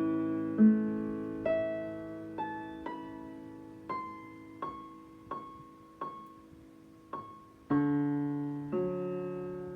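Electric piano improvisation played slowly: struck notes ring out and fade over sustained low notes, with single melody notes in the middle and a fuller chord struck near the end.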